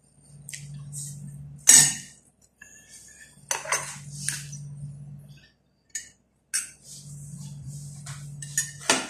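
Metal serving spoon clinking and scraping against a serving dish as salad is scooped out and onto a plate, with a few sharp clinks, the loudest about two seconds in and just before the end. A low hum comes and goes underneath.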